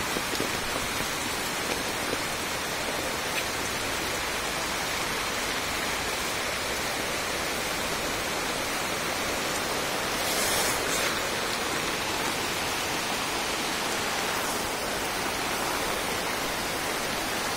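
Heavy rain falling steadily on dense forest foliage, mixed with the rush of a flooded, muddy stream; the sound swells briefly about ten seconds in.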